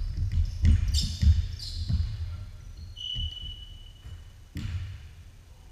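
Basketball dribbled on a hardwood gym floor, several quick bounces about half a second apart, with sneakers squeaking on the court about three seconds in. A single louder thud of the ball hitting the floor comes near the end.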